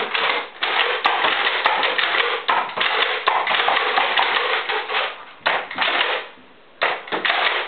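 Nerf Alpha Trooper foam-dart blasters being pumped and fired, a dense run of clattering plastic knocks with a short lull about six seconds in.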